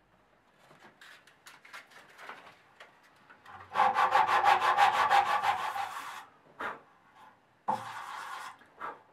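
A sanding block is rubbed fast back and forth across the end of a clamped wooden dowel, about eight strokes a second for a couple of seconds. Light clicks and knocks come first, and near the end there are two shorter runs of sanding.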